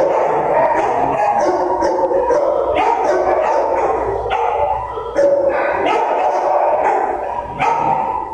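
Many shelter dogs barking at once in a row of kennels, a continuous overlapping din with no pause.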